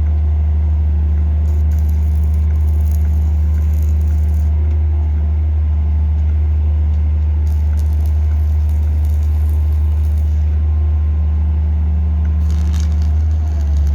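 Hydraulic static pile driver running: its engine and hydraulic power pack give a loud, steady, deep drone. Spells of light crackling and rattling sit on top at times.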